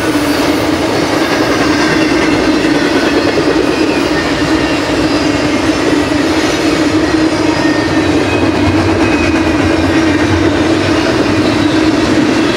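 Freight cars of a BNSF intermodal train, trailer-carrying spine cars and double-stack well cars, rolling past at speed: a steady, loud rumble of steel wheels on the rails with an even drone.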